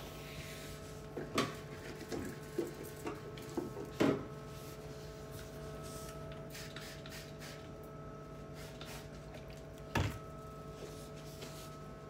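Light knocks and clatters of items and plastic door shelves being handled at an open refrigerator, a quick run of them in the first few seconds with the loudest about four seconds in, and one more knock about ten seconds in, over a steady hum.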